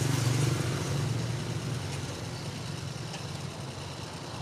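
A motor vehicle passing on the street, its engine hum loudest at the start and fading away over the first couple of seconds, over steady traffic noise.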